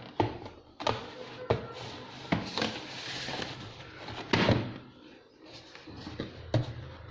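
A product box and its packaging being opened and handled by hand: a series of sharp knocks and clicks about a second apart, with rustling in between and the loudest knock about two thirds of the way through.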